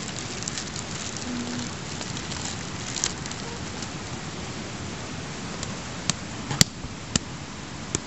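A clear plastic bag crinkling and rustling as it is handled, over a steady hiss. A few sharp clicks come in the last two seconds, the loudest about six and a half seconds in.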